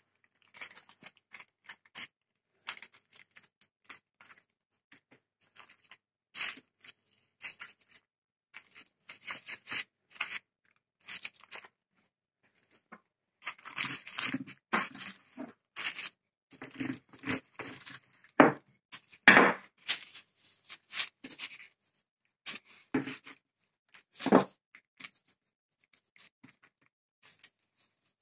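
Hands working shortcrust dough into a baking-paper-lined tart tin: irregular rustling and crinkling of the paper with short scrapes and soft knocks. A rolling pin is rolled over the tin's rim to cut off the excess dough. The handling is busiest in the middle, with a few louder knocks.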